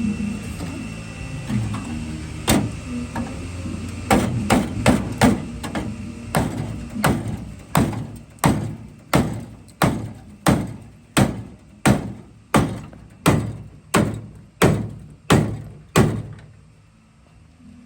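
Heavy hammer pounding the rusted steel body of a 1972 Chevy Nova to straighten out caved-in metal. It starts with a few scattered blows and a quick run of strikes, then settles into a steady beat of about one heavy blow every 0.7 s until it stops shortly before the end.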